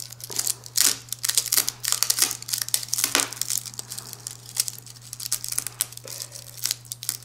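A utility-knife blade sawing through a dried rattlesnake rattle, its hard keratin segments giving a rapid, irregular crackling and crunching as the blade is worked back and forth.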